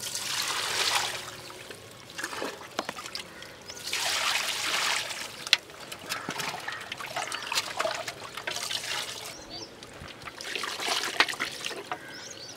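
Water poured from a small mug onto whole raw chickens in an aluminium pot, splashing in about four separate pours. Between the pours, hands squelch and knock as they rub the wet birds against the pot.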